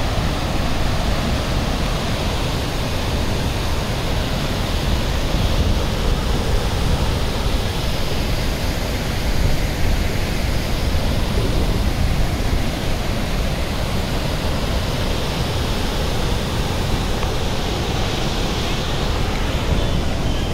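River water pouring through the gated openings of a weir-cum-causeway and churning white below it: a steady, even rushing that does not let up.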